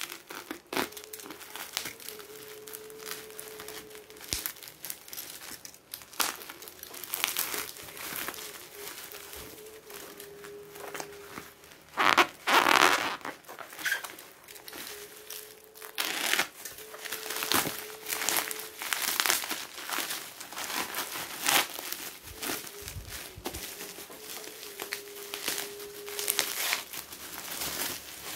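Bubble wrap and plastic packaging crinkling and rustling as a parcel is cut with scissors and pulled open, in irregular handling noises with a louder burst of crinkling and tearing about twelve seconds in.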